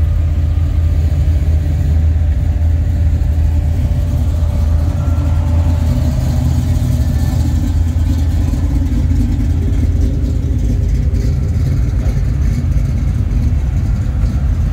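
Car engine running steadily with a low, even rumble, heard from inside the car.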